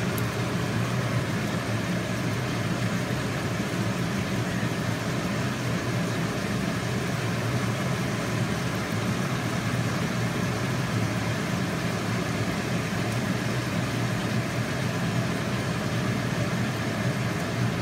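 Steady sizzle of chicken and onions stir-frying in a wok, stirred with a wooden spatula, over a steady low hum.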